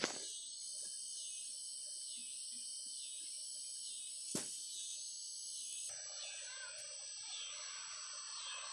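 Cicadas chirping: a steady high-pitched insect drone, with a single sharp click about four seconds in. About six seconds in, a lower, rougher layer of sound joins the drone.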